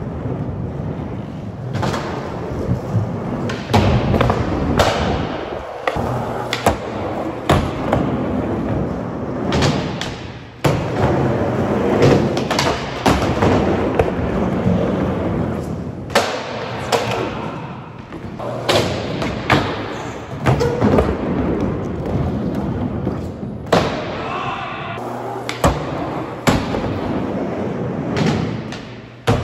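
Skateboard wheels rolling on a smooth skatepark floor, with many sharp knocks of the board throughout as the tail is popped and the board lands and slaps the ground during flatground tricks.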